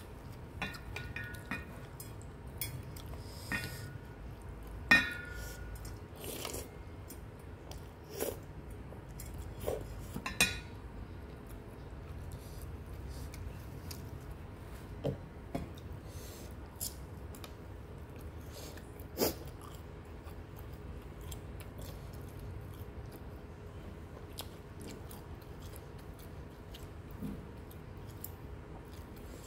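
Close-miked eating of Penang prawn mee: chewing and biting, with scattered sharp clinks of a wooden fork and spoon against a stainless steel bowl. The loudest clink comes about five seconds in, with others near ten and nineteen seconds.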